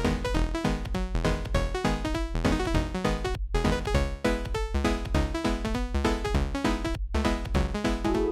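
Background intro music: electronic synthesizer music with a steady, quick beat, dropping out briefly twice.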